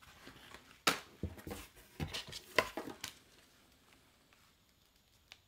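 Snack packets and boxed items being handled and knocked together while rummaging: a string of sharp knocks and crinkles about one to three seconds in.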